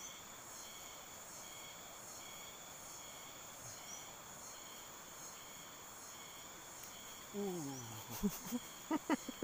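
Steady insect chorus, chirring with several even high tones. Near the end a man's voice drawn out and falling in pitch, then a few sharp clicks.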